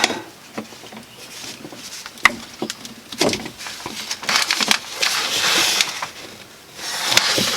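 PEX crimping tool being fitted over a crimp ring and squeezed onto a 1/2 inch PEX fitting: irregular clicks and rubbing, with one sharp click about two seconds in.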